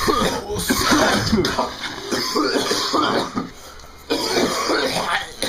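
A person coughing over and over, raspy coughs with a short break a little past halfway. The uploader suspects a cold is behind the raspiness.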